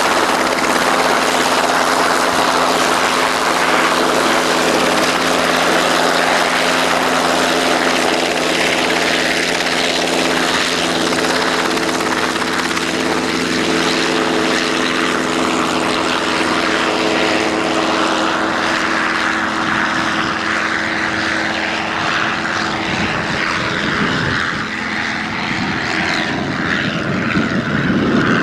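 Light aircraft's piston engine and propeller running steadily at close range, a steady drone with a hum of several pitches over a broad rush. Its steady pitch fades out over the last few seconds.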